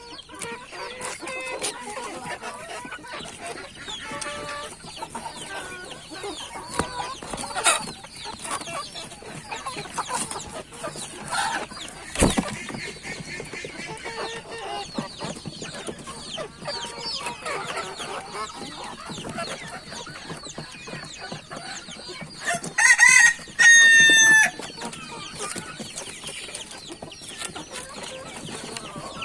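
A flock of local (deshi) chickens clucking continuously, with a rooster crowing loudly near the end. A single sharp knock sounds about twelve seconds in.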